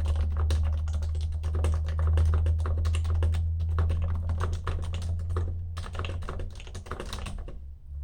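Fast typing on an HHKB (Happy Hacking Keyboard) Bluetooth with silenced Topre switches: a dense run of keystrokes that pauses briefly a little past halfway and stops about half a second before the end. A steady low hum runs underneath.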